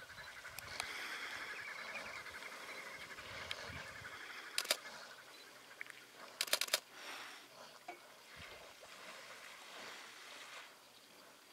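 Camera shutter clicks: a pair a little before halfway through, then a quick burst of three or four about two seconds later, over faint steady background hiss.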